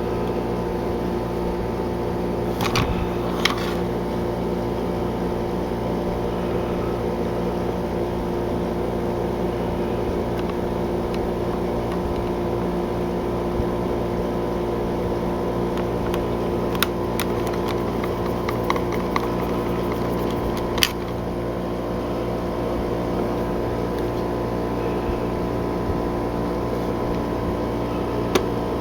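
Steady machine hum, like a fan or air conditioner, with a few light clicks and ticks from driving the hidden screws back into a Nintendo 64 controller's plastic case.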